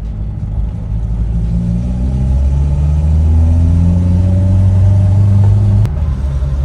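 Mazda 1800's four-cylinder engine pulling under acceleration, heard from inside the cabin, its note rising steadily in pitch and loudness, then dropping suddenly with a click near the end.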